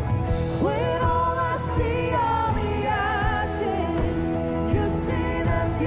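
Live worship band music: electric and acoustic guitars under a woman's lead vocal, which comes in about half a second in and holds long sung notes.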